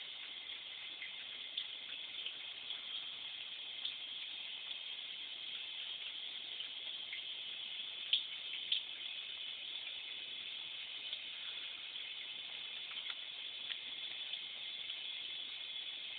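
Water running steadily into a bathtub from the tap, with a few brief sharp splashes; the two loudest come about halfway through.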